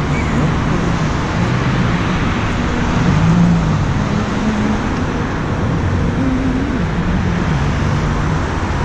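City street traffic at an intersection: cars running and passing, heard as a steady rushing noise with a low engine hum.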